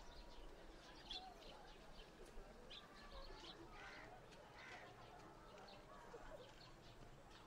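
Faint small-town ambience: birds chirping in short, scattered calls, over faint distant voices.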